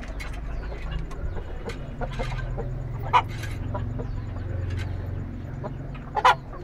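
Chickens clucking: a few short, scattered clucks, two of them louder, about three seconds in and near the end, over a steady low rumble.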